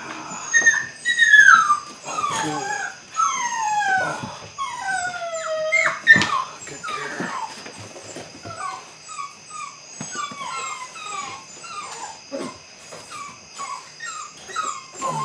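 Belgian Malinois puppy whining and yipping in high cries that slide down in pitch, longer ones in the first half and shorter, quicker yips later on. A sharp click about six seconds in.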